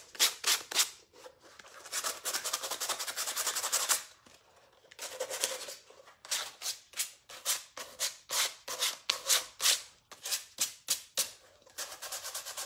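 220-grit sandpaper rubbed by hand over painted canvas shoe fabric in quick back-and-forth strokes, with short pauses between runs: scuffing the dry paint to soften it.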